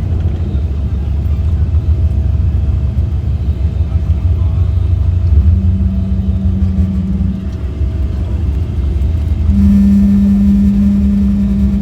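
Boeing 777-300 cabin noise during landing: a steady deep rumble, with a steady hum coming in about five seconds in, dropping away, and returning louder near the end.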